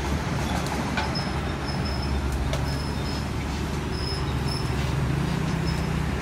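Doosan 220LC-6 crawler excavator's diesel engine running steadily with a low rumble as the boom lifts a loaded bucket of soil. Faint short high tones come and go above it.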